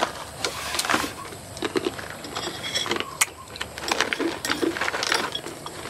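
Plastic snack pouch crinkling as a hand digs into it, mixed with crunching as crisp banana sticks are bitten and chewed: an irregular run of sharp crackles and clicks.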